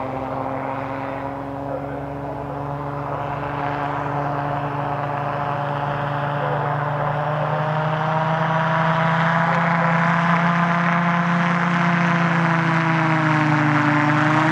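The i-TEC Maverick powered-parachute flying car's engine and propeller running steadily in flight, getting louder as it comes in to land.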